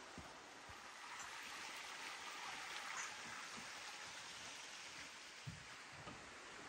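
Faint, steady rush of a mountain river flowing, swelling slightly for a couple of seconds, with a soft low thump about five and a half seconds in.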